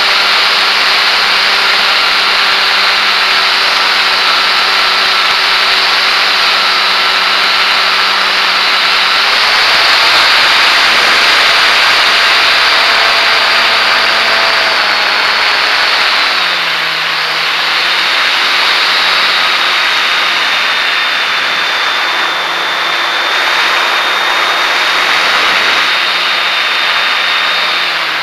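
Motor and propeller of a GeeBee R3R model racer in flight, heard from a camera on board, with a strong rush of airflow over the mic. Its steady whine changes pitch in steps and drops lower about sixteen seconds in.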